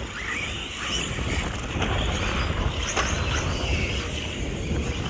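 Several radio-controlled off-road buggies racing, their motors whining and repeatedly rising and falling in pitch as they accelerate and slow, with wind rumbling on the microphone.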